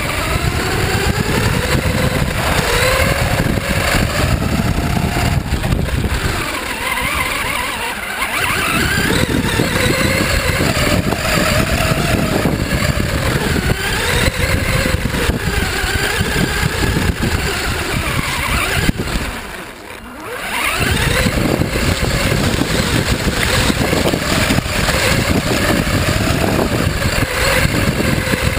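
FTX Enrage 1/10-scale RC buggy's motor whining up and down with the throttle, heard from a camera on the car, over a heavy rumble of wheels and wind. About two-thirds of the way through, the whine and rumble drop away for a moment, then pick up again.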